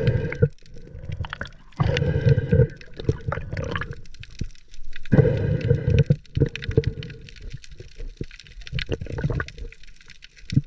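Underwater sound picked up by an action camera in its housing: bursts of muffled gurgling, rushing water, about four of them a few seconds apart, with scattered clicks between.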